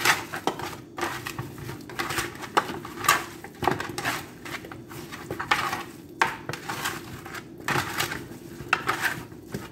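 Hands mixing seasoned raw chicken wings in a metal baking pan: the pieces knock and scrape against the pan in irregular strokes.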